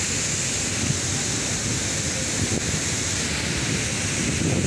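Steady rush of a rocky-river waterfall, with wind buffeting the phone's microphone.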